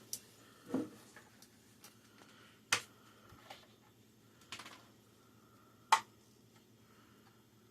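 A few separate sharp clicks and light knocks, a second or more apart, from kitchen utensils and containers being handled while oil is measured out for the popcorn maker.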